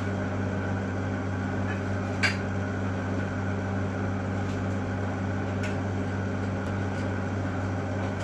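Steady machine hum, like an air conditioner or fan running, with one sharp click about two seconds in and a few faint ticks later.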